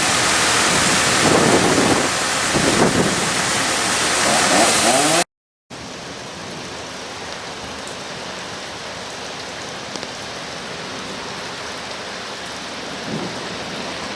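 Heavy rain in a severe thunderstorm, a loud steady hiss. About five seconds in it cuts off sharply, and a quieter, steady rain hiss follows.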